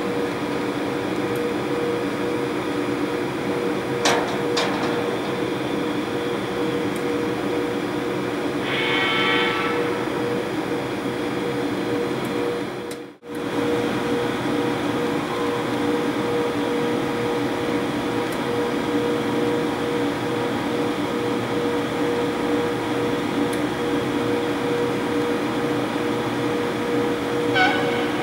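British Rail Class 92 electric locomotive standing with its equipment running: a steady hum with a constant whining tone. A short click about four seconds in and a brief higher sound about nine seconds in.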